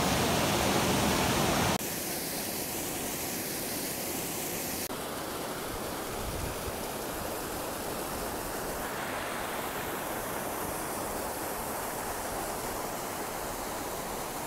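Small waterfalls pouring into a rocky pool and a cascading mountain stream: a steady rush of falling water. It is loudest for the first couple of seconds, then drops abruptly and shifts in tone twice more.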